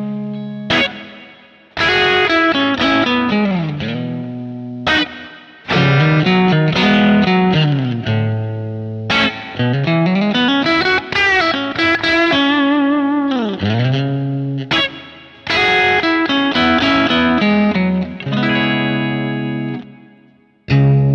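Electric guitar tone demo on a Fender Custom Shop 1957 Heavy Relic Stratocaster with hand-wound '50s single-coil pickups, played through an amp with some distortion. It plays short phrases of chords and single-note licks with string bends and a vibrato note, broken by brief pauses.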